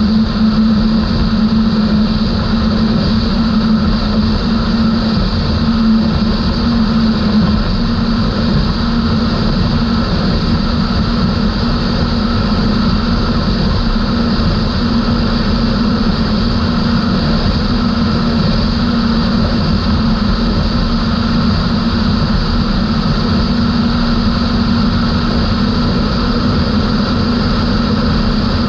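Outboard engines of a 32-foot Skater catamaran running steadily at high cruising speed: a constant, unchanging engine drone over a steady rushing noise.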